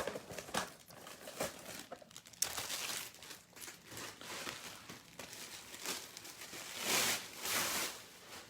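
Packaging on a trading-card box being torn open and crinkled, an irregular rustling with short crackles that swells twice, once about two and a half seconds in and again near the end.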